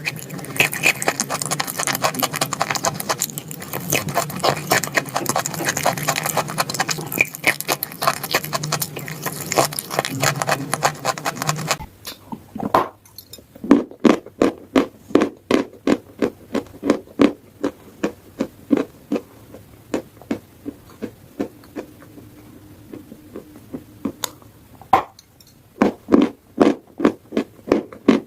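Dry edible chalk being chewed: a dense, continuous crunching for about the first twelve seconds, then slower, steady chewing at about two chews a second.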